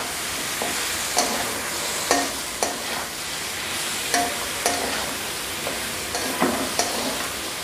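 Chicken and vegetables sizzling in a hot metal wok while a spatula stirs and tosses them. The spatula scrapes and knocks against the pan at irregular moments over a steady frying hiss.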